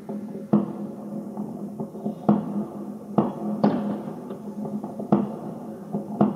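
Aerial firework shells bursting: several sharp bangs at uneven intervals, some a second or more apart and some in quick pairs, over a steady low drone.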